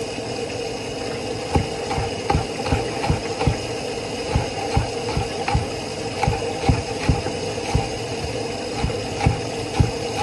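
Kitchen knife chopping scallions on a wooden cutting board: regular knocks of the blade on the board, about two to three a second, starting about a second and a half in.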